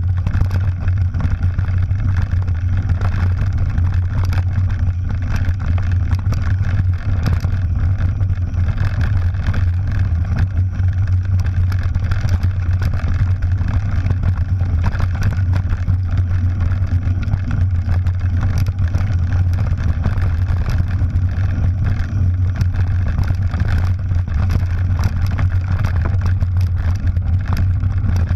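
Mountain bike descending a gravel forest track: a steady low wind rumble over the camera's microphone with tyre noise on the dirt, and frequent small clicks and knocks from stones and the rattling bike.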